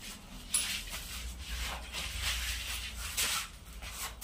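A thick rubber hydraulic breaker hose being pulled about and handled, its rubber cover swishing and rubbing in irregular strokes, with a sharp knock about half a second in.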